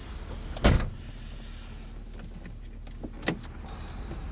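Steady low rumble of a car's interior, with one loud knock about a second in and a smaller click a little after three seconds.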